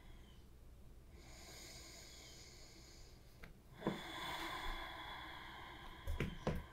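A person breathing slowly and audibly: a long, soft breath, a short pause, then a second, slightly louder long breath, with a few faint mouth clicks near the end.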